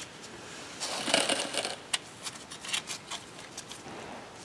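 Hand tools and parts being handled: a rustling scrape about a second in, then scattered light clicks and knocks.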